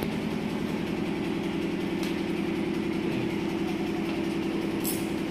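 Steady mechanical drone with a fast, even pulse, with a faint click near the end.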